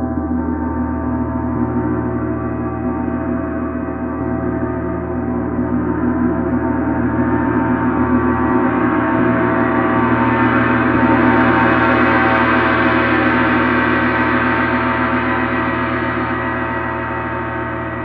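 30-inch Paiste Symphonic gong being played, a dense wash of many ringing tones that swells and brightens to its loudest about two-thirds of the way through, then slowly eases off.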